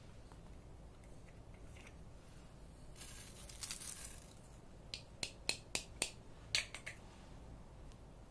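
Small handling noises during slime making: a short crinkly rustle, then a quick run of about eight sharp clicks over some two seconds.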